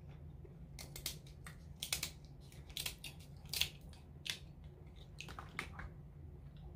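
Kitchen scissors cutting through the hard shell of an Alaskan king crab leg: a run of sharp crunching snips and cracks, about nine of them, the loudest just past the middle.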